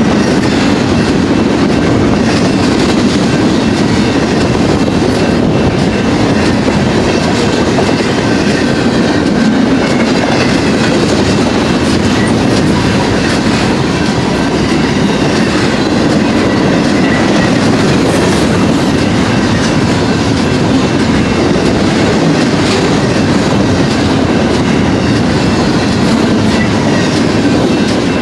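Double-stack intermodal freight cars passing at speed: a loud, steady rumble and clatter of steel wheels on the rails, with a faint high steady ring over it.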